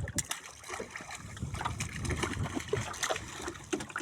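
Light, irregular splashing and trickling of water, with many small scattered clicks.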